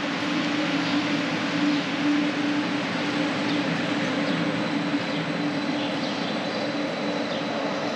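Calgary CTrain light-rail train standing at the platform, giving a steady hum over a broad even rush of noise.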